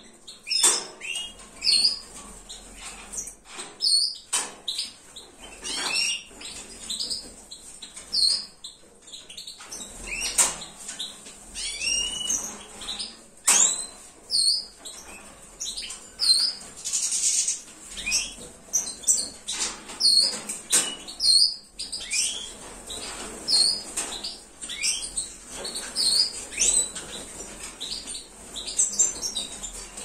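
Caged European goldfinches and canaries giving many short, high chirping call notes, with wings fluttering and light clicks and knocks as they move about the wire cages.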